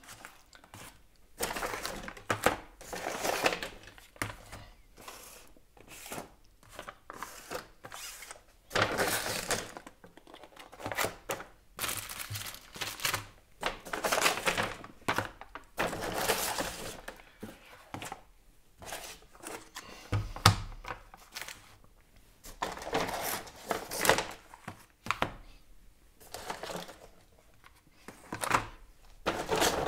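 Rustling of a delivery bag and the clatter of plastic, film-sealed meal trays being lifted out and set down on a countertop, in irregular bursts with occasional thunks.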